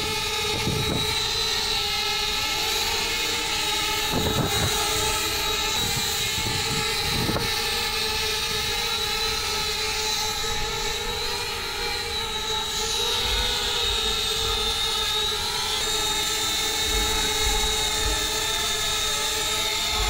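DJI Spark quadcopter hovering low, its propellers giving a steady high-pitched whine that wavers slightly in pitch.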